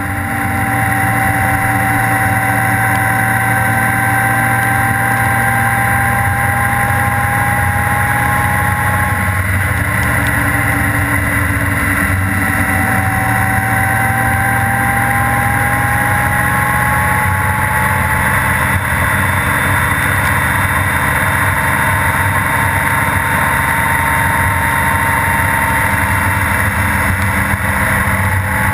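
Honda GL1800 Gold Wing's flat-six running at road speed on a wet road, under a steady rush of wind and tyre noise. A thin whine rises slowly in pitch, breaks off about a third of the way in, then rises again.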